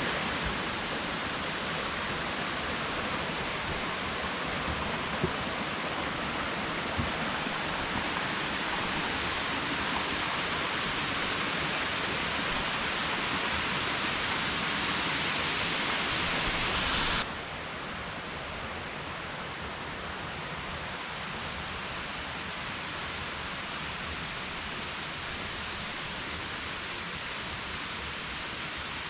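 Steady rushing and hissing of cascading water at the Kuang Si waterfall. It drops abruptly to a lower, duller level about two-thirds of the way in.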